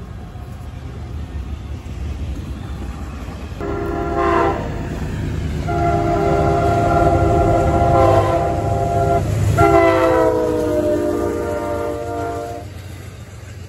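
Diesel locomotive air horn sounding a chord in three blasts, short then two long, over the steady rumble of a passing train. The pitch drops at the end of the first blast and through the last one as the locomotive goes by.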